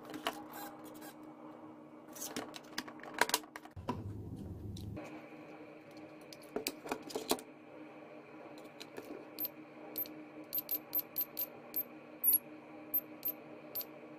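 Small plastic clicks and taps of hands handling a RC boat's battery lead and its red T-plug connector as it is plugged into a B6 balance charger, then a quick run of about a dozen short clicks near the end as the charger's push buttons are pressed.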